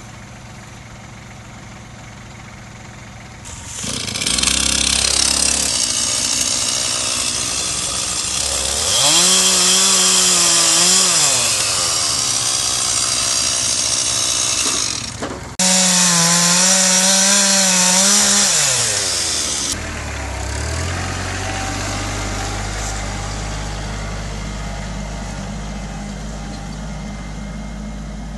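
A chainsaw comes in about four seconds in and is run hard twice while cutting into a tree trunk, with a brief break between. After it stops, a Kubota compact tractor's diesel engine runs steadily.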